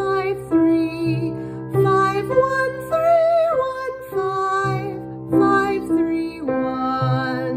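A woman singing a vocal ear-training exercise: legato arpeggios up and down through the notes of the one chord. Sustained keyboard chords underneath are struck again every second or two.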